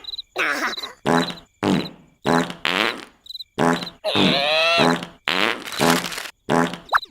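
Cartoon character making a quick series of short, raspy comic vocal noises, about ten of them, with a longer one about four seconds in.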